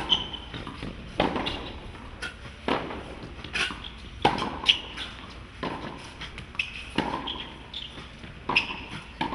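Tennis rally on a hard court: rackets strike the ball and the ball bounces, one sharp pop about every second and a half. Brief high shoe squeaks on the court surface come between the pops.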